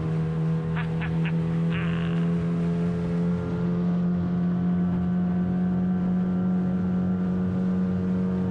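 Small outboard motor driving a dinghy across the water at speed, a steady drone.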